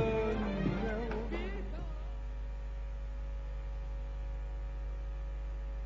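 A song with a wavering sung voice dies away about two seconds in, leaving a steady low hum.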